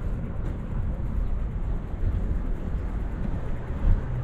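Wind buffeting the microphone of a camera riding on a moving bicycle: an uneven low rumble, with a brief thump near the end.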